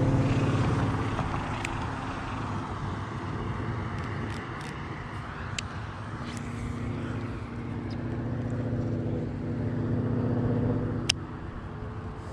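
Road traffic: cars passing, one fading away in the first couple of seconds and another building up and going by late, with a sharp click just after it passes.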